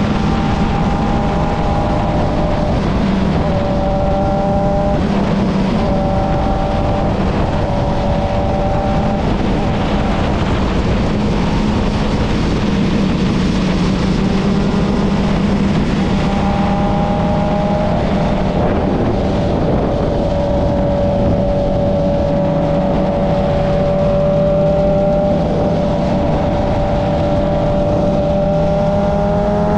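Motorcycle engine running at a steady cruising speed over heavy wind and road rush, heard from the riding bike itself. The engine note holds level, then rises right at the end as the bike accelerates.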